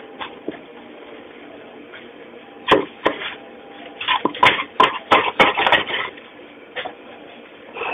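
Sharp knocks and clatter of hard items being handled on a kitchen work counter. Two knocks come about three seconds in, then a quick run of knocks from about four to six seconds, over a faint steady hum.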